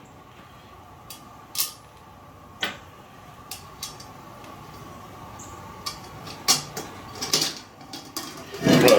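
Scattered light clicks, clinks and knocks of small metal grill parts and hardware being handled during assembly, growing busier toward the end.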